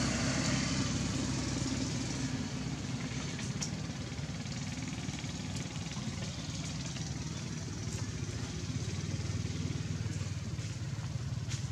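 Steady low hum of an engine running, with a few faint clicks over it.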